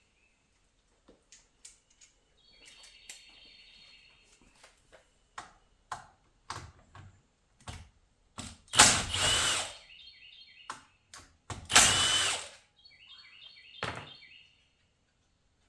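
A cordless power ratchet or driver runs in two short bursts, about three seconds apart, spinning out the 10 mm bolts that hold a transmission's range sensor. Light clicks and knocks of tools and metal parts being handled come before and between the bursts.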